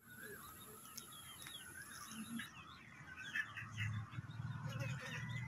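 Small birds chirping in the background: a busy run of short, quick chirps that rise and fall in pitch.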